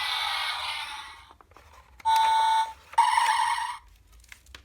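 Sound effects played through the small speaker of a play-a-sound book: a hissy burst lasting about a second, then two short electronic blasts about a second apart, the first a steady beeping tone.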